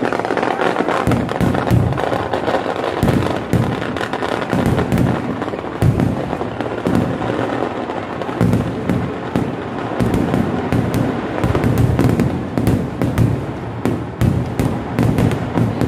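Fireworks display: a dense, unbroken barrage of bangs and crackling as aerial shells burst overhead.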